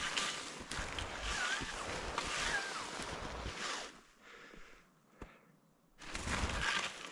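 Skis sliding through deep powder snow, a run of swishing strides; about four seconds in the skier stops and it goes quiet for roughly two seconds, then the swishing starts again.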